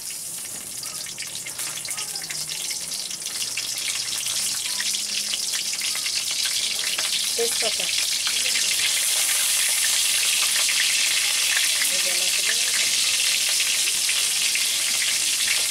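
Green chillies sizzling in hot oil in a kadai (wok). The sizzle grows louder over the first several seconds, then holds steady.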